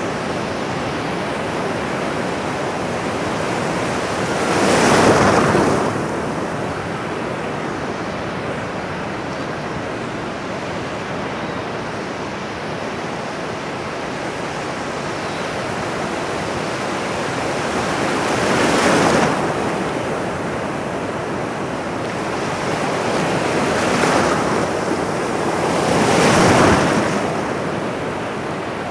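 Ocean surf: a steady wash of water with waves breaking in four swells, a strong one about five seconds in, a weaker one past the middle, and two close together near the end.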